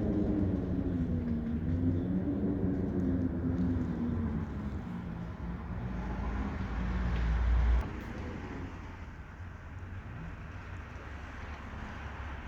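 A vehicle passing, its engine note slowly falling and fading over the first few seconds, over a steady rush of storm wind. Wind buffets the microphone in a heavy low rumble from about six and a half seconds in, which cuts off suddenly near eight seconds.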